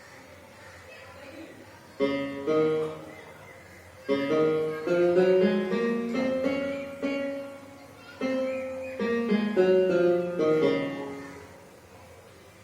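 Casio CT-S200 Casiotone portable keyboard played in a piano-like voice: a short phrase of single notes and chords that starts about two seconds in, with two brief pauses, and dies away near the end.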